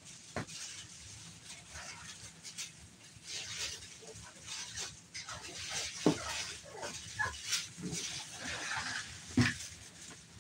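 A litter of American bully puppies playing rough in a pen: paws scuffling and scratching on puppy pads, with a few short grunts and yips.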